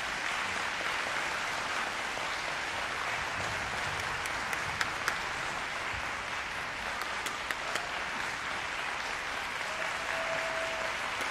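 Audience applauding steadily, with a few sharper individual claps standing out.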